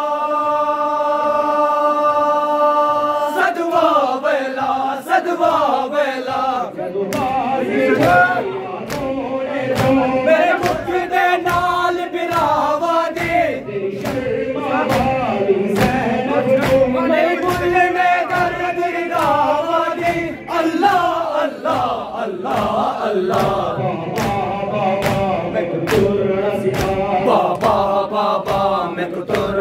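Crowd of men chanting a Muharram nauha together in a lament refrain, opening on a long held note. A steady beat of sharp slaps of hands on chests (matam) runs under the chant.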